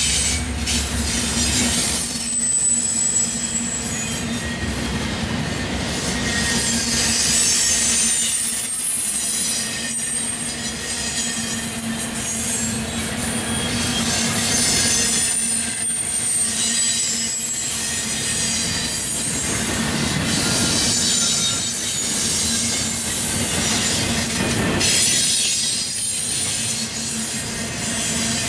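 Double-stack intermodal freight train rolling past at close range, steel wheels clattering over the rail with thin high-pitched wheel squeal coming and going. The low rumble of the receding diesel locomotives fades out in the first couple of seconds.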